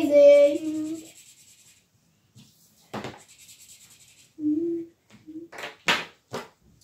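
A child's voice holding a note fades out about a second in. Then come a few quick scratchy strokes of felt-tip markers on paper, most of them near the end, with a brief hum in between.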